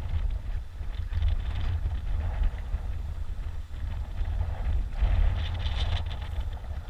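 Wind buffeting an action camera's microphone, a steady, uneven low rumble, with rustling and scraping from the climber's gloved hands and clothing against the rock.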